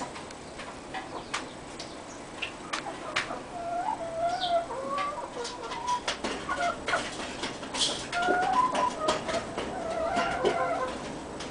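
Barred Rock hens clucking: short calls come in quick runs from about four seconds in, over scattered sharp clicks.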